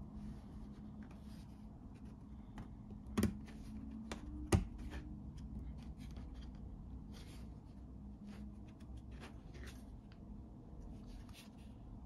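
A thin plastic frame being pressed down onto a plastic leather-forming mold, snapping into place with two sharp clicks about a second apart, the second louder, amid soft rustling and rubbing of fingers on the plastic and leather.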